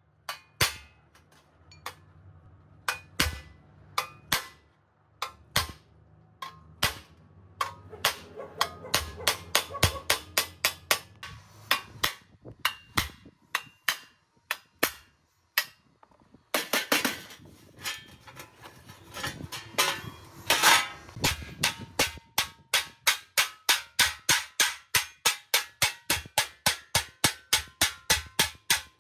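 Hand hammer striking thin sheet metal against a stone slab, folding over the curved edge of a wheel-arch trim piece. Scattered single blows at first, a quick run of blows a little past halfway, then a steady beat of about two or three blows a second near the end.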